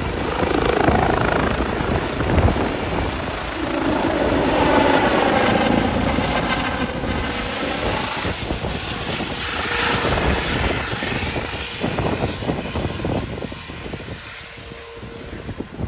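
Rescue helicopter lifting off and climbing away overhead: a rapid rotor beat over turbine noise, loud for the first ten seconds or so and then fading as it departs.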